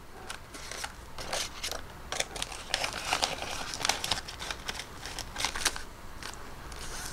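Paper bills and budget-binder envelopes being handled: irregular crinkling and rustling, with scattered light clicks.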